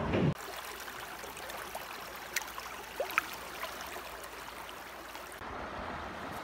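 Running water of a shallow, rocky stream, a steady rush with a few brief high plinks near the middle. A louder low rumble cuts off sharply just after the start.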